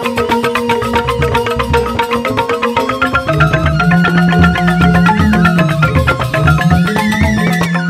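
Balinese joged bungbung gamelan playing: bamboo-tube xylophones (grantang) struck in fast, dense, interlocking patterns, with suling bamboo flutes carrying a held melody that steps higher near the end, over a low bass line.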